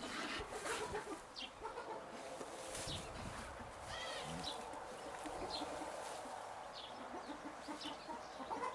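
Chickens clucking in a steady run of short repeated calls, with short high chirps scattered over them.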